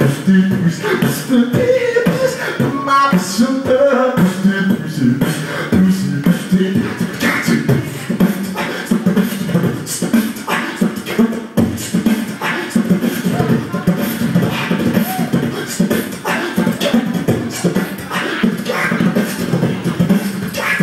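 A person beatboxing into a handheld microphone through a PA: a continuous, rhythmic run of sharp mouth clicks and drum-like hits over a low hummed tone.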